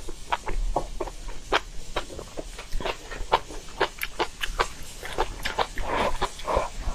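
A person eating noisily: wet chewing, lip smacks and slurps in a quick, irregular string of short clicks.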